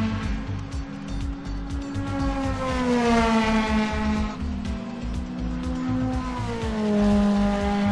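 Animated race-car engine sound effects: a running engine tone that glides down in pitch several times, as cars pass by, over background music.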